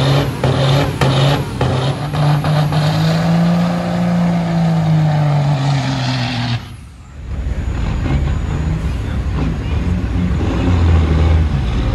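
Heavy truck engine running hard at a truck drag race, its note climbing and then falling back. About seven seconds in it drops away abruptly and a lower engine rumble follows.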